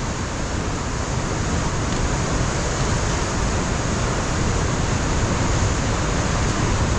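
Ocean surf breaking on a rocky coastline, a steady rush of water noise that builds slightly after the first couple of seconds.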